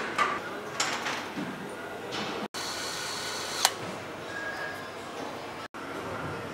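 Engine assembly-shop ambience: a steady background hum of the workshop, with sharp clicks and clinks of tools and metal parts being handled. The loudest is a single sharp click a little past halfway. The sound cuts out for an instant twice.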